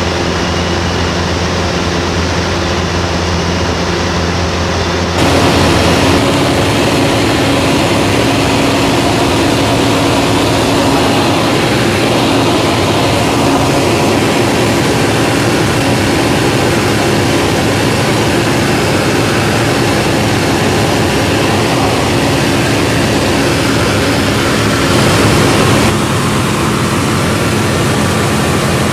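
Steady drone of a light aircraft's piston engine and propeller in cruising flight, with air rushing past. For most of it the drone is heard from inside the cockpit. Its tone changes abruptly about five seconds in and again near the end.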